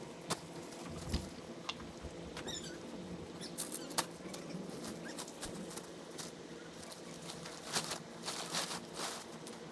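Scattered clicks and taps with bursts of rustling, from tent gear being handled during setup. There is a cluster of rustles near the end.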